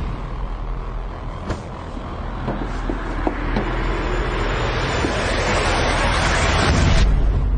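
Tension sound design for a gunfight standoff: a low rumbling drone under a hiss that swells over several seconds and cuts off suddenly about seven seconds in, while the rumble grows louder. A few faint ticks sit on top.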